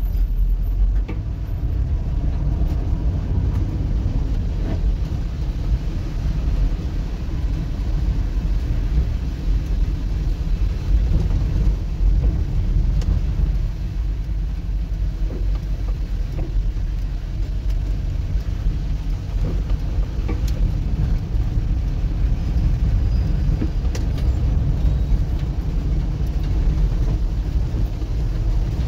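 Car driving on a wet road, heard from inside the cabin: a steady low rumble of engine and tyres, with a few faint ticks here and there.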